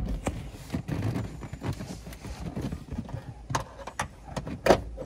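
Irregular knocks and clunks of hand tools and loosened parts while a car's rear seat is being pried and unbolted out, with a few sharper knocks near the end, the last the loudest.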